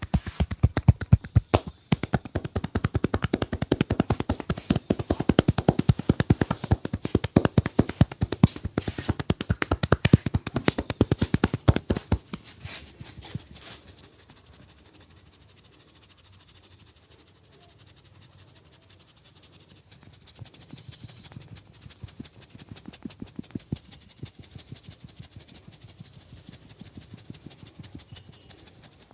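Rapid percussive massage strokes: the barber's hands slap and tap in a fast, continuous run of sharp smacks. The run stops about twelve seconds in, giving way to quiet rubbing with a few light taps.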